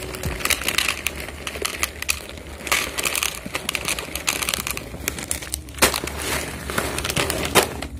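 Dry Whiskas cat food poured from a plastic pouch into a plastic tub: the pouch crinkles and the kibbles rattle against the plastic in irregular bursts.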